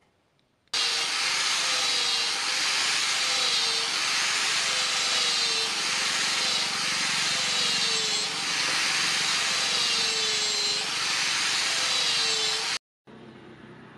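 Angle grinder with a sanding pad sanding a wooden knife handle, its motor tone dipping in pitch again and again as the pad bears on the wood. It starts about a second in and cuts off sharply near the end.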